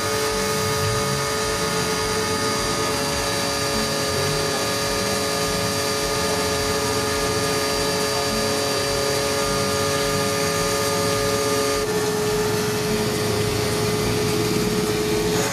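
Electric pressure washer running steadily while washing an air-conditioner unit: a continuous motor-and-pump whine with several steady tones over a hiss. A few of the tones drop out about twelve seconds in.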